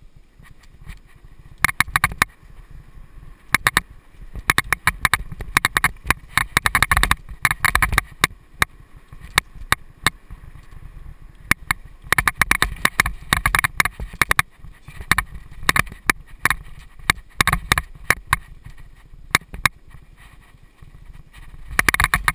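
Mountain bike clattering over a bumpy dirt singletrack: clusters of sharp rattling clicks from the bike over a low rumble of tyres on dirt.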